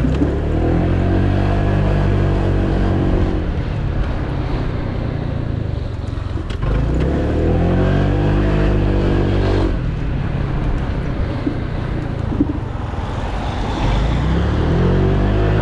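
Honda PCX 125 scooter's single-cylinder four-stroke engine pulling away three times: each time the engine note rises in pitch, levels off, then drops back as the throttle eases.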